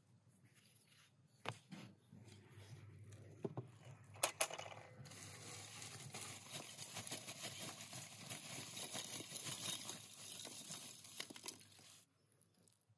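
Cloth rustling and rubbing over a metal bucket: a few sharp knocks in the first half, then dense, steady rustling from about five seconds in that stops abruptly near the end.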